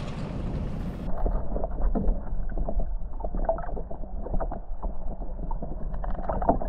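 Wind rushing on the microphone for about a second, then the sound goes muffled and dull as it shifts to underwater: sloshing water with many scattered small clicks and knocks, thickest near the end.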